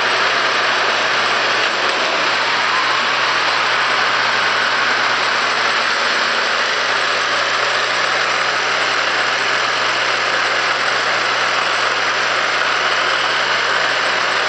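Electric motor of a K'nex roller coaster's chain lift running with a steady mechanical whirr, the plastic chain rattling along the track as it hauls the car up.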